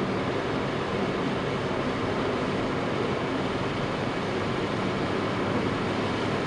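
Steady road noise inside a moving car's cabin: tyres running on wet asphalt and the engine at cruising speed, an even rumble and hiss with no changes.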